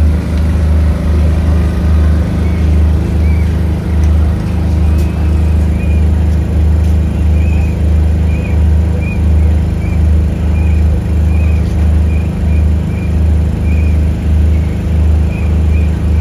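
Bass-heavy music played loud through a street sound system: a deep bass beat pulsing steadily, about three beats every two seconds.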